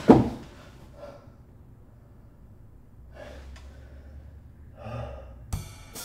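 A man gasps sharply as he jolts awake, then breathes out hard a few times. A sharp click comes near the end.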